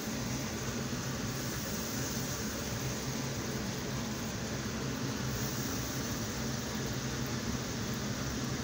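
Hot oil sizzling steadily around breadcrumb-coated chicken skewers deep-frying in a pan, with a low steady hum underneath.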